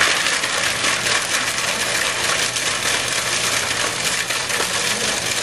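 KitchenAid food processor starting suddenly and running steadily, its blade chopping pieces of toasted bread and a garlic clove into breadcrumbs, with the pieces rattling against the bowl.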